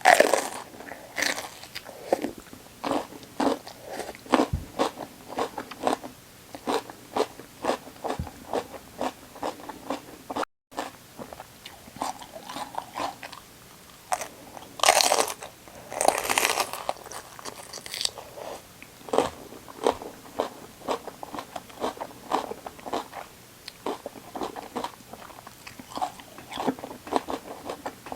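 Close-miked biting and chewing of crisp raw vegetables: loud crunchy bites near the start and again a little past halfway, with steady crunching chews in between.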